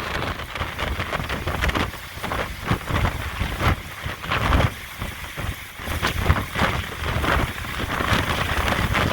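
Hurricane-force wind and heavy rain, the gusts buffeting the microphone in a low rumble that swells and eases every second or so.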